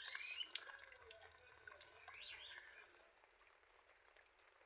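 Faint bird chirps, one right at the start and another about two seconds in, over a quiet background that fades to near silence.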